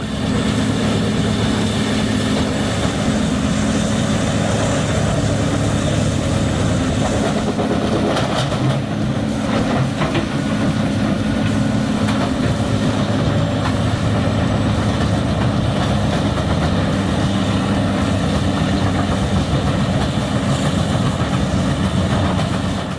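Bandit Beast 4680 horizontal grinder, its Caterpillar C27 V12 diesel running steadily under load with a heavy drone and a rough, rattling texture, as a wood-waste grinder sounds at work.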